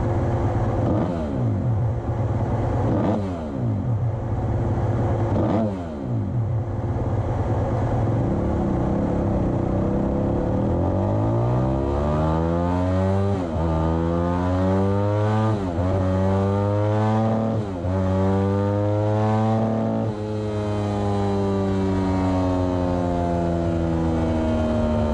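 Suzuki RM-Z250's 249 cc single-cylinder four-stroke engine running on a chassis dyno: ticking over with a few quick throttle blips, then from about eleven seconds in revved up under load, its pitch climbing and breaking sharply about four times as it is taken through the gears, ending in a long pull.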